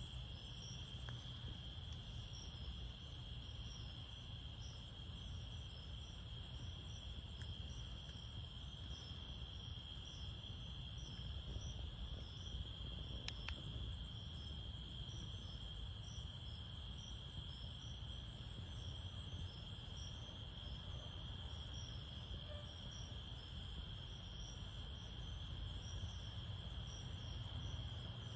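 Night insect chorus: a steady high trill with regular short chirps above it, about two a second, over a low rumble.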